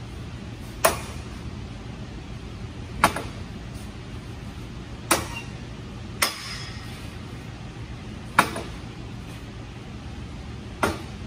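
Steel square-tube pivot arms of a homemade tow-truck wheel-lift T-bar being swung on their pivots by hand, clanking metal on metal about six times, roughly every two seconds, each knock ringing briefly.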